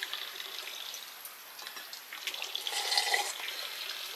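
Water pouring and splashing, uneven and growing louder for a moment about three seconds in.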